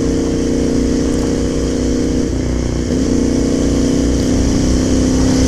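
Motorcycle engine running at a steady cruise, with wind rumble on the microphone. About two seconds in, the engine note drops briefly and then comes back up, as with a gear change or easing off the throttle.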